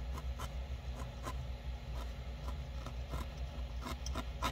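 Faint, irregular ticks of a 40-gauge felting needle stabbing repeatedly into a tiny piece of core wool, about two or three pokes a second, over a low steady hum.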